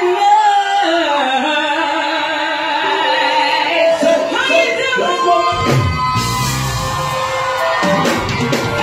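Live Afrobeats concert in a large hall: singing with yells and whoops from the crowd, at first without accompaniment. The band's bass and drums come in about five and a half seconds in.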